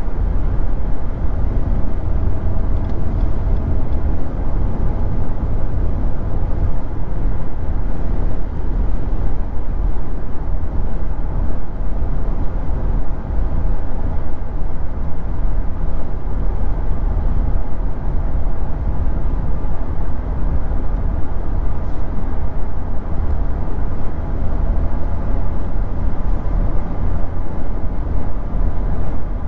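Steady low road and tyre noise inside the cab of a 2022 Nissan Frontier Pro-4X cruising at highway speed on all-terrain tyres.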